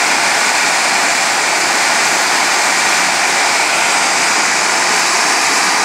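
Steam escaping from a 600 MW power-plant boiler: a loud, steady hiss that does not change.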